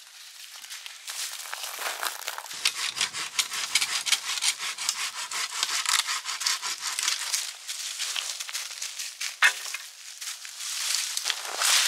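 Hand saw cutting through dry dead wood for a campfire in quick, rhythmic strokes, with one sharp knock about nine seconds in.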